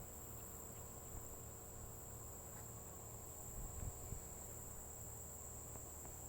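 Crickets chirring in a faint, steady, high-pitched drone.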